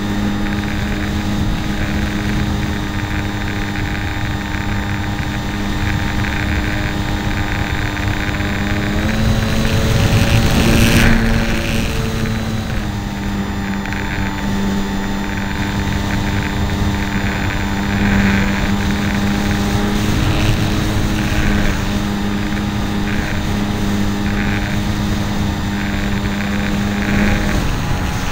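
Electric motor and propeller of a Hobbyzone Super Cub RC plane whining steadily, heard from a camera mounted on the plane. The pitch shifts about a third of the way through with the throttle, a brief rush of air noise follows, and the whine settles back a little before the halfway point.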